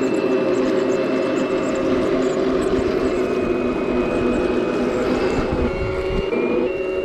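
Toy radio-controlled M1A2 Abrams tank running: a steady, loud whine with several held tones, stepping slightly in pitch a few times near the end.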